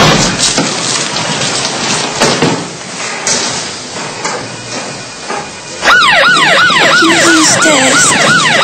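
Ambulance siren starting suddenly about six seconds in, a fast repeating wail of about three sweeps a second. Before it, a steady hiss-like noise.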